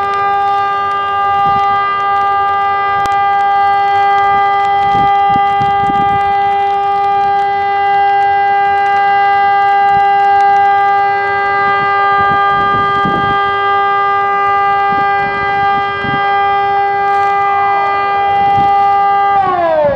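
TESLA UEAJ-II 600 electronic civil-defence siren, with plastic loudspeakers from the older UEAJ-I, sounding the steady continuous tone of a siren test. Near the end the tone glides down in pitch as the siren winds down.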